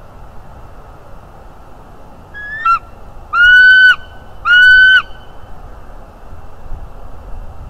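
Bald eagle calling: one short note that rises and falls, then two loud, long, level notes about a second apart.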